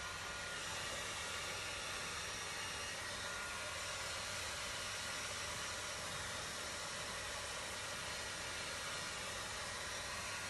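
Hair dryer running steadily, a constant blowing hiss.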